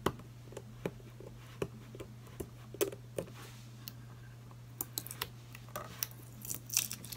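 Fingernails picking and scratching at a sticker on the Cogsworth clock figure: a run of irregular small clicks and scratches, busier near the end, over a low steady hum.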